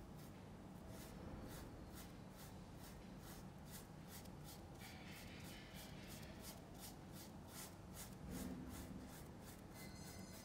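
A paintbrush scrubbing back and forth on canvas in quick, even strokes, about three or four a second, laying in and blending an oil-paint background.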